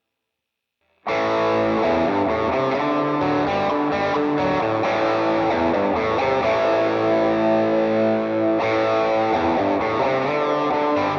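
Electric guitar played through a Valeton GP-200 multi-effects processor on one of its artist presets, starting about a second in after a moment of silence and playing on steadily.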